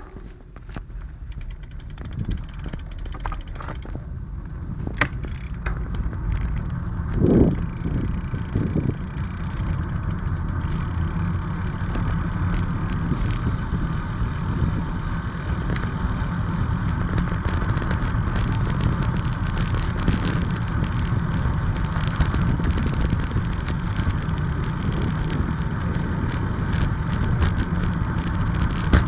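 Steady rush of wind and road noise from riding along, building over the first few seconds as speed picks up, with a brief louder swell about seven seconds in.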